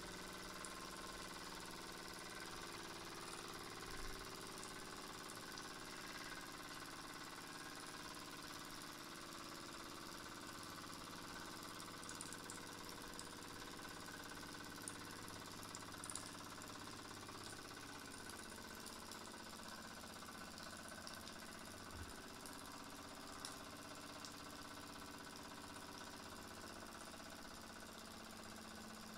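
Scratch-built V-twin model steam engine, with 8 x 10 mm cylinders, running steadily under steam.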